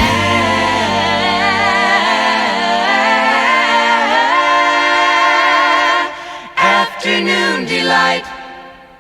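Music: several voices singing in close harmony without accompaniment, holding long, wavering notes. About six seconds in they break into shorter phrases, then fade out near the end.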